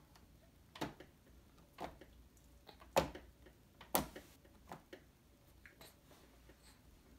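A series of short, sharp clicks, roughly one a second, the strongest in the first half and fainter ones toward the end.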